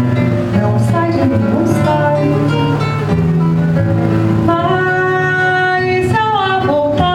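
A woman singing held, wavering notes to an acoustic guitar accompaniment.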